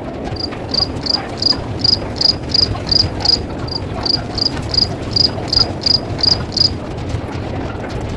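A cricket chirping, about three even high-pitched chirps a second, then stopping, over a steady low background noise.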